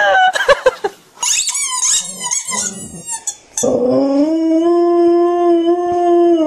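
A dog with a squeaky toy in its mouth howls one long, steady note from about halfway through, its pitch starting to drop near the end. Before the howl come a few short gliding bleats from goats and a quick run of high squeaks.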